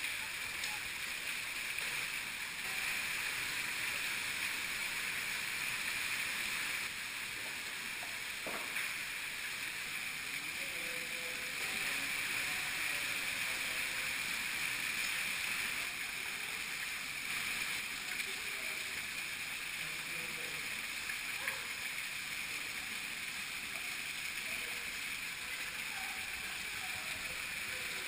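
Cave streamway water rushing and splashing in a steady, unbroken hiss.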